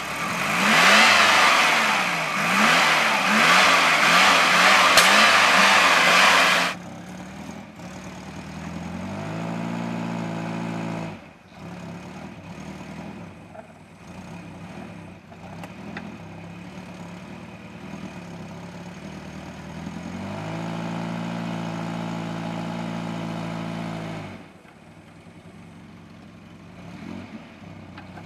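Volvo 740 engine revving hard and loud, its pitch swinging up and down, until a sudden cut about seven seconds in. After that it runs more quietly, with the revs raised and held twice, for about two seconds and then about four seconds.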